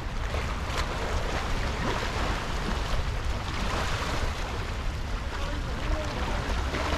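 Wind buffeting the microphone with a steady low rumble, over sea water washing and splashing against shoreline rocks.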